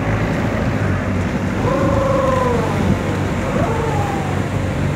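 Tour boat's engine humming steadily under the rush of fast, turbulent river water below a large waterfall. A faint voice comes through briefly around the middle.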